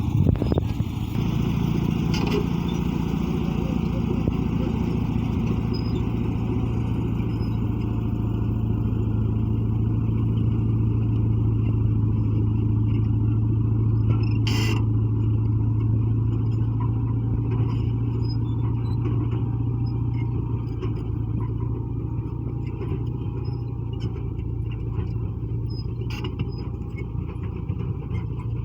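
Caterpillar D8 bulldozer's diesel engine running steadily under working load, a deep, even drone that swells and eases slightly. A single sharp knock sounds about halfway through, with a few lighter clicks near the start and the end.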